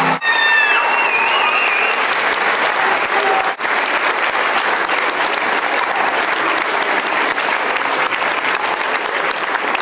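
Audience applauding, with a few high cheers in the first two seconds.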